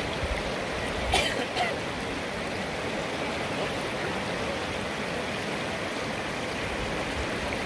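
Whitewater rapids rushing steadily over and between rocks, an even wash of water noise. There are two short sharp sounds about a second in.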